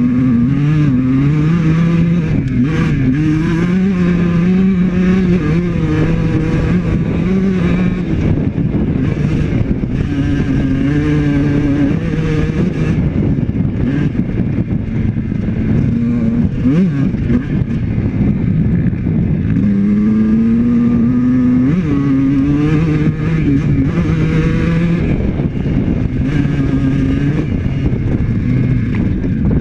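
Honda CR125 two-stroke dirt bike engine running and revving, its pitch rising and falling again and again as the throttle opens and closes.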